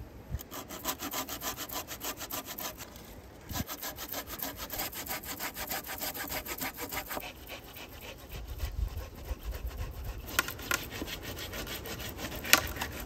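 Hand pruning saw cutting through a dead conifer log in quick, even strokes, about four or five a second, with a short break about three and a half seconds in. The strokes turn more irregular after the midpoint, and a few sharp cracks come near the end.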